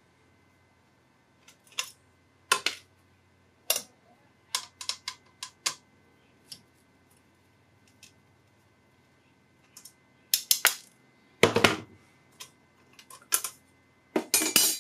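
Irregular sharp clicks, taps and clatter of small metal parts and a tool being handled while a computer power supply is taken apart, with a louder burst of clatter about ten seconds in and another near the end.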